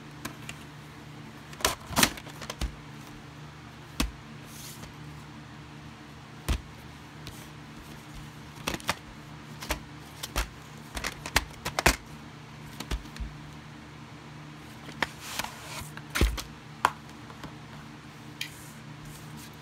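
Plastic VHS cassettes and their case being handled and set down: scattered irregular clicks, taps and knocks, some in quick clusters, over a faint steady hum.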